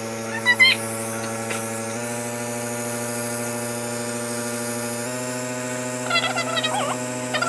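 Omron compressor nebulizer running with a steady electric buzzing hum as it turns the medicine into mist.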